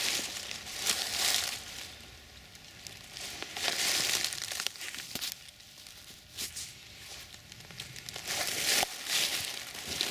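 Footsteps crunching and rustling through dry fallen oak leaves, in a few irregular bunches with quieter pauses between.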